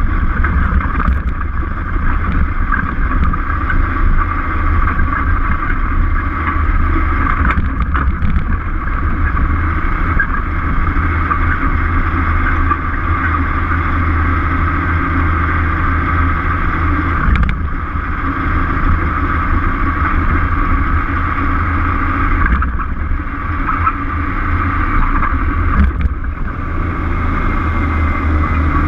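Peterbilt truck's diesel engine running steadily while the truck drives at town speed, with road and wind noise.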